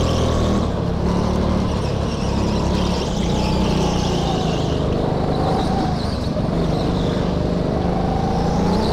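Go-kart engine running at speed, heard from on board the kart. Its pitch dips around the middle as the kart slows for a corner and rises again near the end as it accelerates out.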